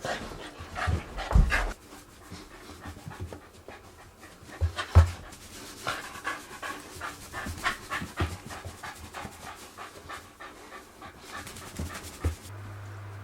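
A Shiba Inu panting in quick, even breaths, with a couple of louder thumps in the first half.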